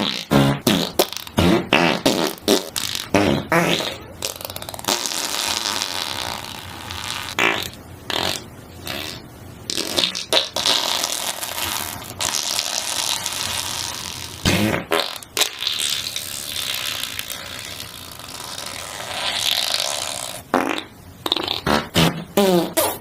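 A run of fart sound effects. Quick strings of short, pitched toots come near the start, about two thirds of the way in and again near the end. Between them are long, hissy, sputtering farts lasting several seconds each, broken by a few short sharp blasts.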